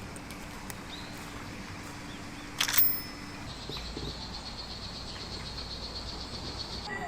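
Outdoor natural ambience in which a high, fast-pulsing insect trill sets in about halfway through and holds steady, with a single brief knock a little before it.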